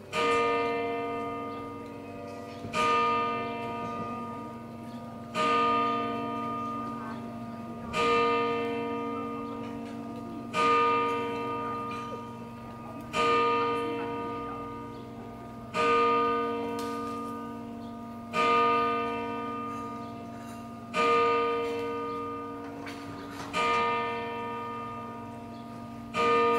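A single large church bell of Naumburg Cathedral tolling slowly, one stroke about every two and a half seconds, each ringing on and fading before the next; eleven strokes in all.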